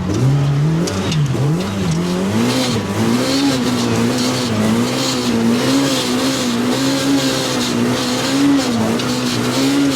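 Turbocharged four-cylinder engine of a Polaris RZR Pro R side-by-side, revving up in the first second and then held under throttle, its pitch rising and falling again and again as the machine ploughs through deep snow.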